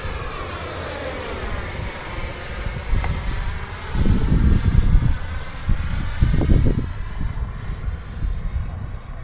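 The 80 mm electric ducted fan of an E-flite F-18 RC jet gives a steady high whine as the plane flies around, its pitch sliding as it passes. There are two heavy low rumbles in the middle.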